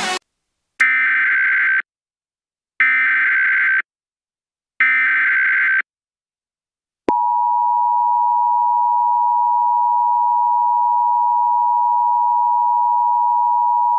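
Emergency Alert System broadcast tones: three one-second bursts of SAME header data about a second apart. About a second after the third burst, the steady two-tone EAS attention signal starts and holds.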